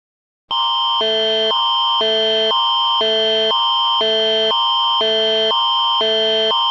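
Canadian Alert Ready attention signal starting about half a second in: a loud electronic tone that switches every half second between a higher and a lower pair of notes, over a steady high note held throughout.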